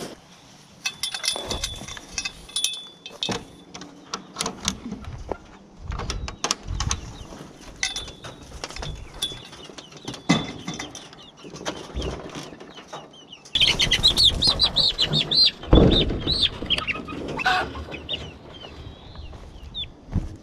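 Young chickens (pullets) being caught by hand: knocks and rattles of handling, then, about two-thirds of the way in, a few seconds of loud, rapid alarm squawking and wing flapping as a bird is grabbed, settling to lighter clucks.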